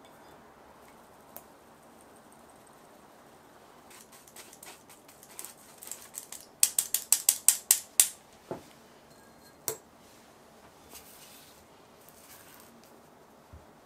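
A quick run of sharp clicks, about eight in a row at roughly six a second near the middle, with a few scattered single clicks before and after.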